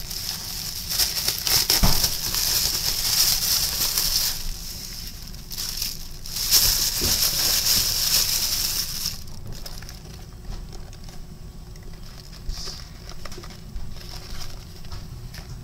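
Plastic carry-out bag rustling and crinkling as it is handled and unpacked, in two long stretches. Quieter, scattered rustling and light knocks follow during the last third, as a cardboard food box is handled.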